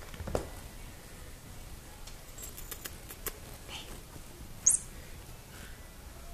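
A kitten scrambling and clawing at fabric sofa upholstery: light scratches and ticks. A short, sharp, high-pitched chirp about four and a half seconds in is the loudest sound.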